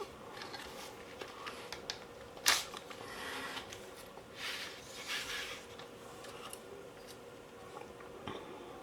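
Small clicks and scrapes of metal and plastic parts being handled while a Cyma CM040 airsoft AK is taken apart, with one sharper click about two and a half seconds in and short rubbing noises after it.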